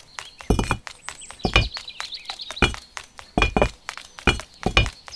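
Miniature bricks knocking and clinking together as they are dropped and stacked, about seven sharp knocks at uneven spacing. Birds chirp faintly in the background.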